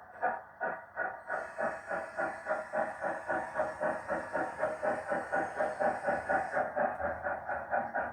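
Steam exhaust chuffs from a model GWR steam railmotor's sound decoder, played through its small onboard speaker, quickening from about three to about four chuffs a second as it gathers speed. A steady hiss runs over the chuffs and stops about six and a half seconds in.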